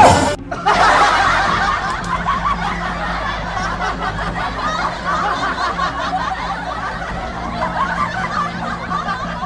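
Many people laughing together, a dense overlapping wave of laughter that sets in about half a second in right after a short loud burst, and eases off gradually toward the end.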